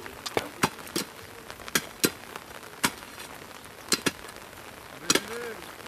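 Sharp knocks at uneven intervals, about ten of them, as an iron bar is driven into the wet soil and stones to tamp the earth around the base of a concrete electric pole. A brief voice is heard near the end.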